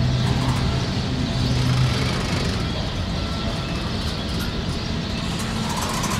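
Freight cars of a Norfolk Southern train, steel coil cars and bulkhead flatcars, rolling past. Their steel wheels on the rails make a steady rumble.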